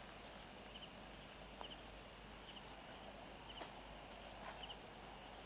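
Faint night ambience: a wood campfire with occasional sharp crackles and pops, and a small animal giving short, high double chirps about once a second.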